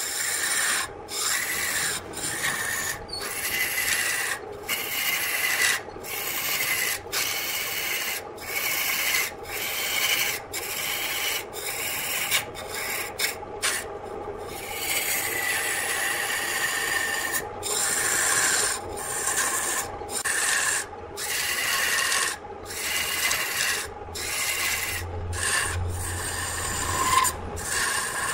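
A turning tool cuts into a wooden blank spinning on an electric lathe, making a rasping scrape in repeated passes about once a second. Short breaks fall between passes as the tool lifts off, with a longer break about halfway through. A steady hum from the running lathe motor sits underneath.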